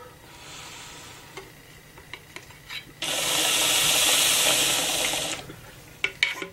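Glass bong bubbling as smoke is drawn through its water, faint at first and then loud and rushing for about two seconds. A few sharp clicks follow near the end.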